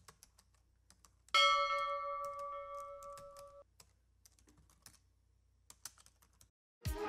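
Sound-effect keyboard typing: faint scattered key clicks. About a second in, a single bell ding rings out and fades over about two seconds, and dance music starts right at the end.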